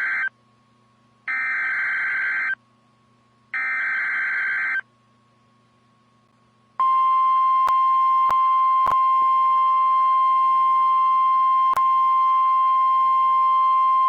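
NOAA Weather Radio EAS activation. The end of one burst and then two more bursts of SAME header data follow, each a buzzy, warbling digital screech about a second long with a second's silence between. After about two seconds of quiet, the steady 1050 Hz NWR warning alarm tone begins about seven seconds in and holds, with a few sharp static clicks over it.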